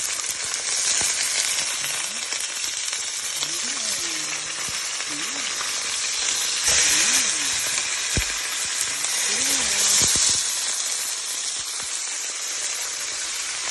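Stuffed beef morcon roll searing in hot vegetable oil in a pan: a steady sizzle that swells louder about seven seconds in and again about ten seconds in.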